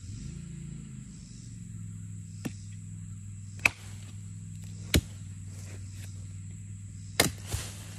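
Machete chopping into a dead tree trunk: a faint first strike, then three sharp chops a second or more apart, the last followed by a lighter knock. A steady low hum runs underneath.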